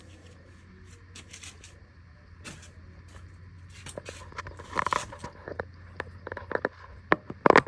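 Handling noises of hands working on a car's steering column: irregular clicks, knocks and rustles, sparse at first and getting busier and louder about halfway through, with the sharpest clicks near the end.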